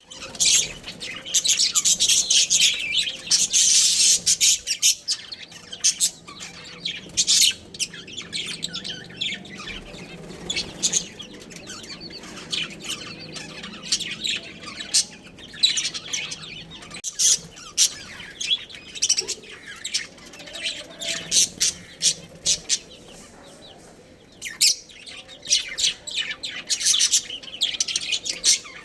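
Budgerigars chirping and chattering in a rapid run of short, high chirps. The chirping is busiest in the first few seconds and again near the end.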